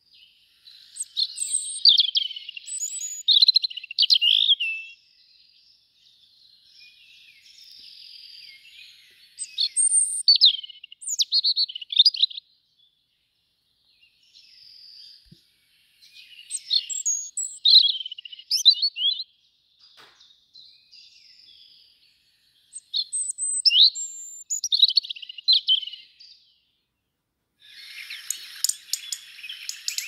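European robin singing: four high, varied phrases of twittering notes and trills, each a few seconds long, with short pauses between. Near the end a denser, rapid crackling sound begins.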